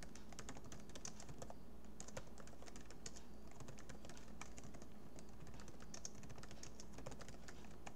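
Typing on a computer keyboard: a continuous, irregular run of faint keystroke clicks, several a second.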